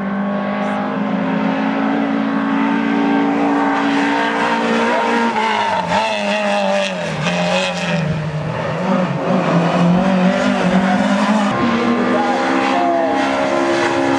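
Rally car engine under hard throttle on a stage, its note holding steady, then dipping and wavering in pitch as the driver lifts and changes gear before pulling again.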